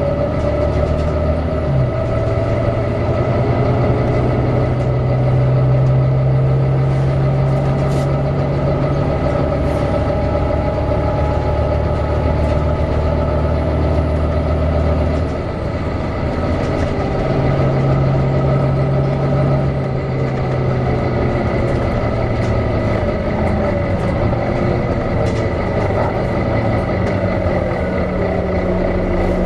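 Volvo B9TL double-decker bus running, its engine note shifting as it goes, with a thin high steady whine over it from the cooling fan.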